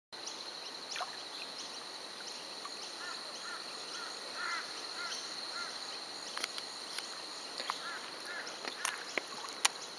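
Outdoor nature sound: insects trilling steadily in one high thin tone, with short chirping calls repeated in little series around three to five seconds in and again near eight seconds, and a few sharp clicks.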